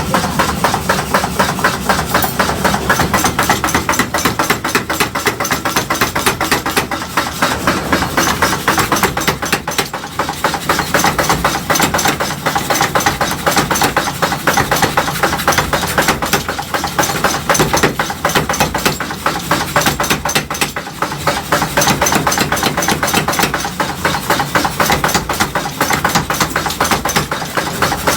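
Rapid, steady mechanical pounding, many blows a second without a break, from metalworking machinery in a blacksmith's shop making tongs.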